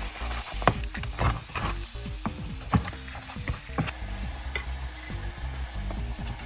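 A wooden spatula stirring crab pieces in a pan of sizzling garlic butter, knocking and scraping against the pan over the steady frying hiss. The knocks are most frequent in the first few seconds.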